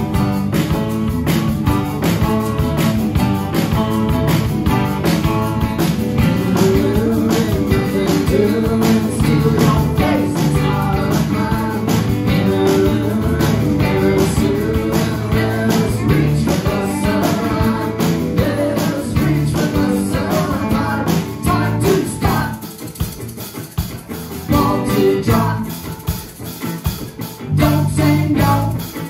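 Live rock band playing with electric guitars, bass and drums, and voices singing. About 22 seconds in, the music thins out and gets quieter and more uneven.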